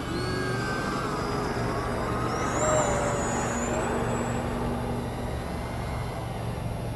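FPV racing quadcopter motors and propellers whining, several tones gliding up and down in pitch as the throttle changes, over a steady rushing noise. Loudest about three seconds in.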